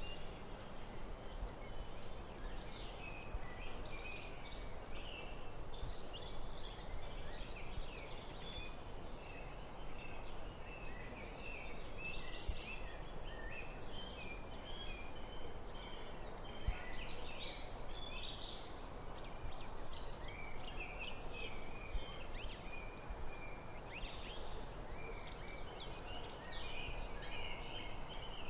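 Forest birds chirping and singing in a dense, continuous chorus of short high calls over a steady background hiss.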